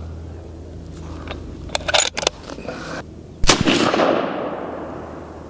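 Sig Cross bolt-action rifle in .308 Winchester, fitted with a Liberty Infiniti X suppressor, fired once about three and a half seconds in: a sharp report followed by a long fading tail. A few sharp clicks come about a second and a half before the shot.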